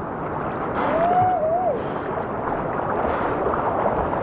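Whitewater river rapids rushing steadily around the kayak, a dense wash of moving water. A brief wavering call from a person rises and falls about a second in.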